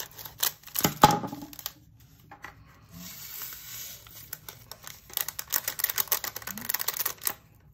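Scissors snipping open a small plastic bag of round diamond-painting drills, with the bag crinkling, then a dense run of tiny clicks from about five seconds in as the drills are poured into a plastic storage container.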